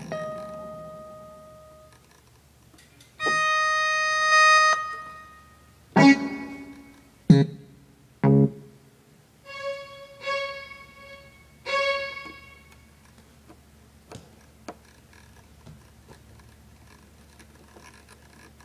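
Yamaha keyboard sounding a string of single test notes in different instrument voices, with pauses between them: a held note about three seconds in, a few short struck low notes, then two more notes, and faint clicks near the end.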